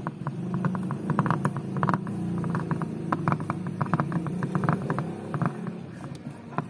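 Screwdriver turning a small screw into the plastic door-pull recess of a car's interior door trim panel: a fast, irregular run of clicks over a scraping rub of plastic, trailing off near the end.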